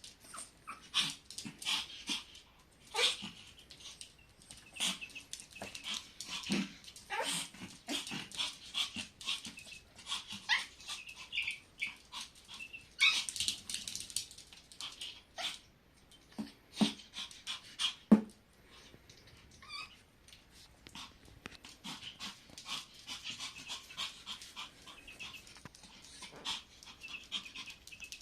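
A puppy whimpering and giving small yips and barks, over a scatter of quick scratchy clicks and scuffles.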